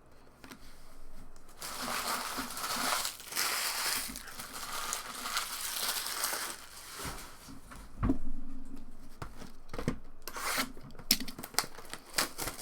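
Trading card pack wrappers being torn open and crumpled: a long stretch of crinkling and rustling, followed by a couple of dull knocks and some light clicks from handling.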